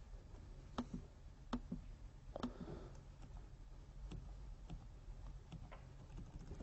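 Faint, irregularly spaced clicks of a laptop being worked, about ten of them, over a low steady room hum.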